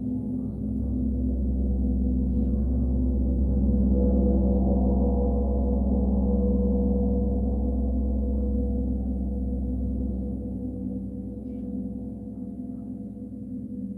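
Gong ringing with a deep low hum and many overlapping steady tones. The hum swells in about half a second in and slowly dies away after about ten seconds.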